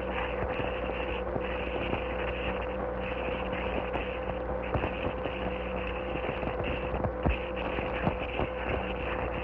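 Surface noise of an old optical film soundtrack: a constant hiss with scattered clicks and pops over a steady hum-like tone.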